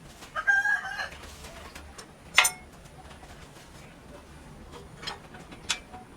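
A short bird call with a clear pitched tone, under a second long, about half a second in. A single sharp knock comes a little over two seconds in and is the loudest sound. Two lighter taps follow near the end.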